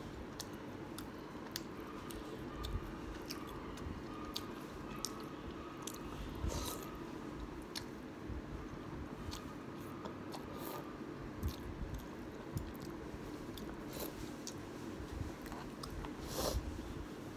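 Close-miked eating of kimchi ramen noodles: chewing, biting and many sharp wet mouth clicks, with a sip from a spoon, over a steady faint hum.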